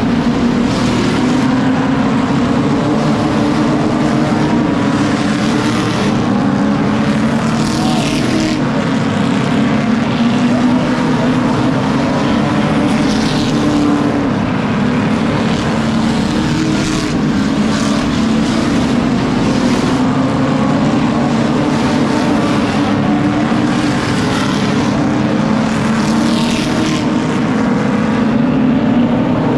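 A field of stock cars racing around a short oval, engines running loud and steady, with individual cars sweeping past now and then.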